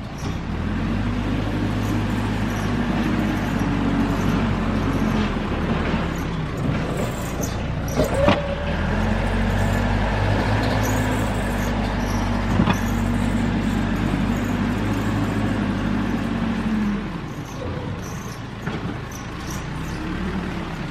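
Caterpillar backhoe's diesel engine running at raised revs, as when working its hydraulics, then easing down near the end. Two sharp knocks come through it near the middle, several seconds apart.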